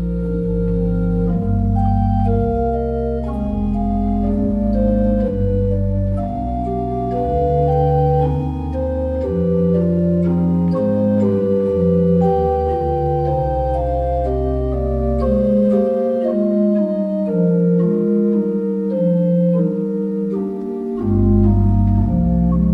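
Church organ played from the keyboards in held chords with moving inner and upper lines over a deep pedal bass. The bass drops out for about five seconds in the second half, then comes back.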